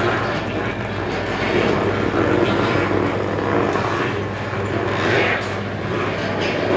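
A powered wooden oil ghani (kolhu) running, its pestle turning in the wooden mortar and grinding copra to press out coconut oil. It makes a steady low machine hum under a rough, even grinding noise that swells slightly now and then.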